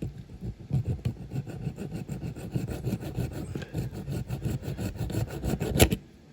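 Hacksaw cutting into the die-cast metal body of a toy car in quick, repeated short strokes, with one sharp strike, the loudest sound, near the end.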